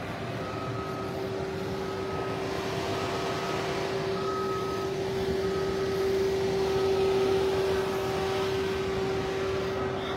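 Steady drone of idling emergency vehicles, a constant hum over an engine rumble, swelling slightly about six seconds in.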